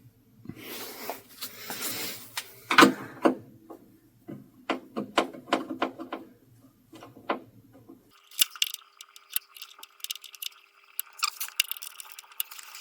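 Phillips screwdriver clicking and scraping in the back-panel screws of a CRT TV, slipping in the screw heads rather than turning them. About eight seconds in the sound changes abruptly to quieter, rapid small ticks over a faint steady hum.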